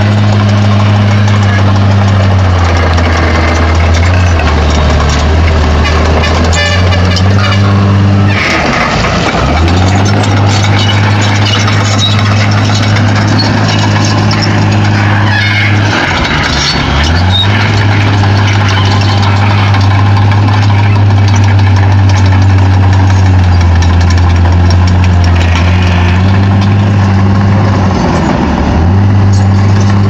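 Heavy diesel engine of a crawler bulldozer running hard and steady over a constant mechanical clatter. Its pitch sags briefly and recovers three times: about a third of the way in, halfway through, and near the end.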